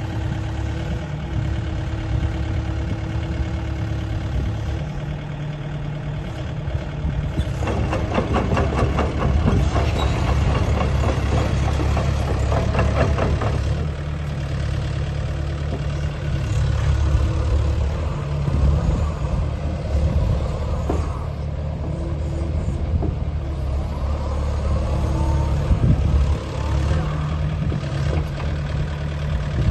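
The Yanmar 4TNV94L four-cylinder diesel of a 6-ton XCMG XE60GA crawler excavator running steadily. It grows louder and busier for several seconds in the first half, then settles back.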